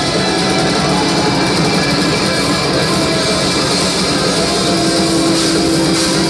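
Rock band playing live and loud, with electric guitar and keyboard; a long held note enters near the end.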